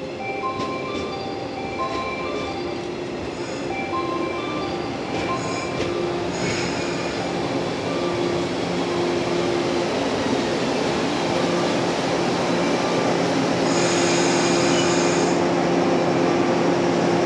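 Electric commuter train running along a station platform, its wheels and running gear rumbling under a steady low hum, with brief high-pitched wheel or brake squeals about six seconds in and again near the end. For the first few seconds a melody of short bell-like chime notes plays over it.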